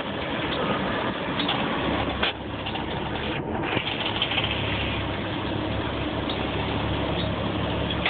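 Fire engine's engine running steadily at low speed, heard from inside the cab as a low hum.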